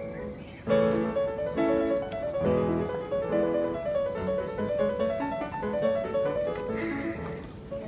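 Background piano music: a melody of separate notes and chords, with a fuller chord coming in about a second in.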